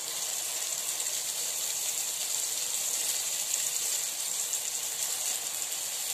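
Small rounds of idli batter deep-frying in hot oil in a kadai, with a steady sizzle.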